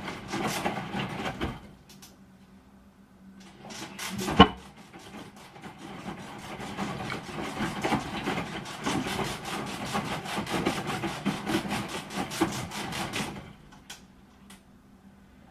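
Broken washing machine running with a fast, rhythmic scraping clatter. A short burst plays at the start, then a single loud knock comes about four seconds in. A longer run of rattling follows and cuts off near the end, with a faint steady hum underneath.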